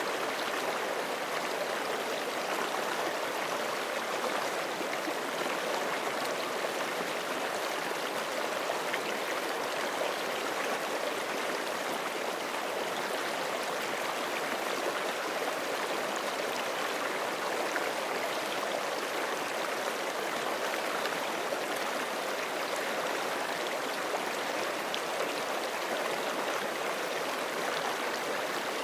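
Forest creek running over rocks: a steady, even rush of flowing water.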